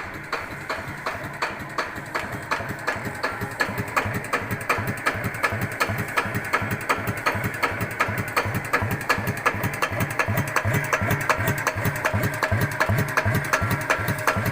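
Yanmar TF105L single-cylinder diesel engine idling very slowly and evenly, each firing stroke a distinct knock at about five a second. The owner finds this 'tok-tok' knocking strange and is unsure whether the engine is healthy.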